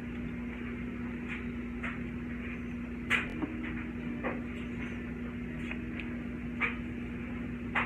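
Small plastic food-colouring bottles handled and squeezed over a cup of glue: scattered light clicks and taps, about seven over several seconds, over a steady low hum.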